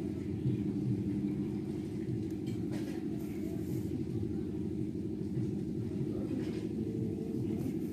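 A steady low rumble throughout, with faint scratchy rasps about three seconds in and again near the end as a needle and yarn are drawn through jute sacking.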